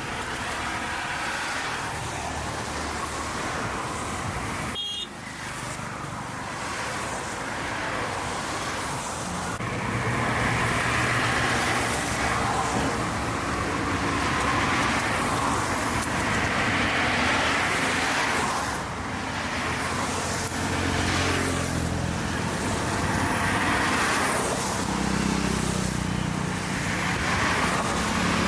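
Busy city street traffic: a continuous flow of cars and other motor vehicles running past with engine hum and tyre noise, and a car horn tooting now and then. It grows louder from about ten seconds in.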